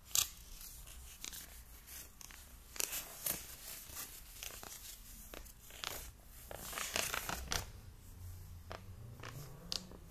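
Folded paper instruction sheet crackling and rustling as it is handled and unfolded: a run of irregular sharp crinkles, busiest about three seconds in and again around seven seconds.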